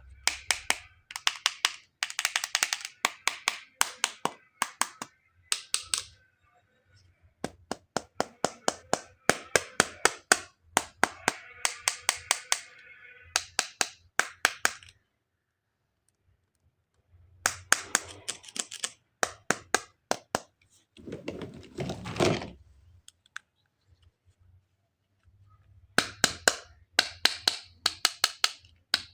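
Rapid runs of sharp plastic clicks and taps from toy pieces and packaging being handled, in clusters with short pauses. About 21 seconds in there is a brief crinkling rustle of packaging.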